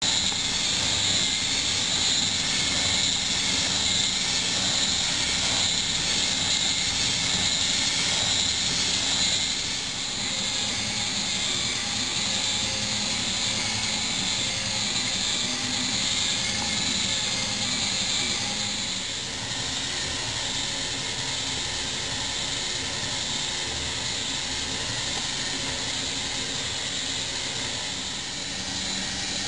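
Fischertechnik paternoster lift model running: its small electric motor whirring steadily as it drives the plastic gears and chains. A little quieter from about ten seconds in.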